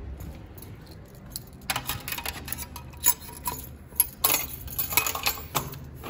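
A bunch of metal keys jingling and clinking. A quick, uneven run of metallic clinks starts about two seconds in, with several sharper knocks among them.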